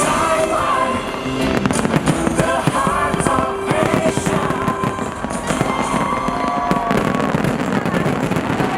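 Fireworks bursting and crackling in rapid, dense pops, over music playing from loudspeakers.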